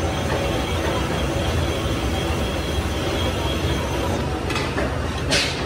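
Metal lathe running with a large compressor piston turning in its four-jaw chuck: a steady motor hum and rumble, with a few short hissy scrapes near the end.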